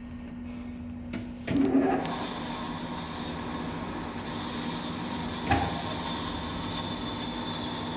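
Large engine lathe's spindle engaged about one and a half seconds in, bringing the heavy chuck with a steel block up to speed, then running steadily with a high whine. A single short knock comes about five and a half seconds in.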